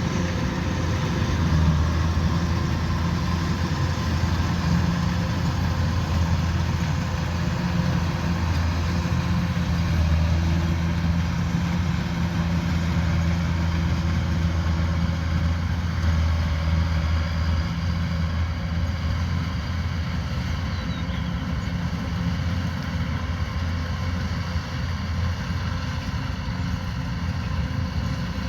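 Kubota DC105X combine harvester's diesel engine running with a steady drone, easing a little quieter after about 18 seconds.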